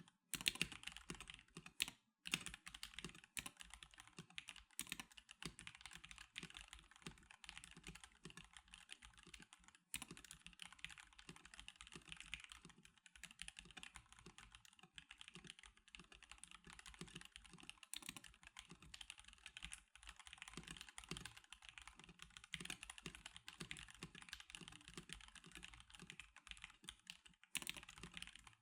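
Steady typing on a stock NovelKeys NK87 Darkshake Edition mechanical keyboard: a rapid, continuous run of keystroke clacks, with a short pause about two seconds in, another about ten seconds in, and one just before the end.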